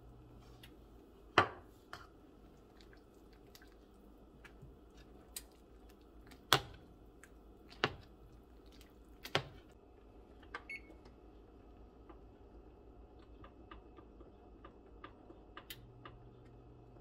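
Metal utensil knocking against the side of a stainless steel saucepan while stirring and mashing thick potato soup: four sharp clanks spread over the first ten seconds, with a few lighter taps after.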